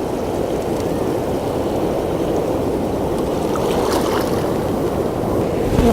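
Steady wash of ocean surf, an even rushing noise with no break.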